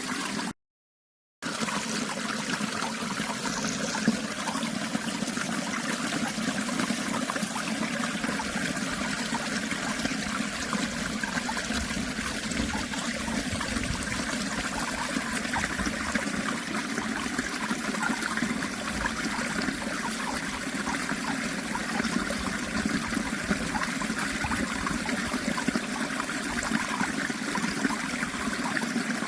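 Steady flowing water of a natural stream, a continuous babbling rush, broken by a brief cut to silence about half a second in.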